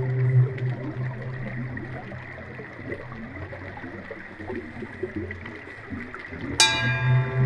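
Intro soundtrack under the title cards: a held drone fades out into a quieter, shifting noisy texture, then a sudden ringing hit about six and a half seconds in brings the drone back.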